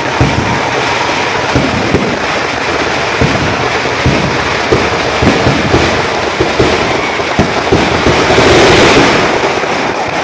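Fireworks display: a dense, continuous crackle with frequent sharp bangs as shells burst overhead. The noise swells about eight seconds in.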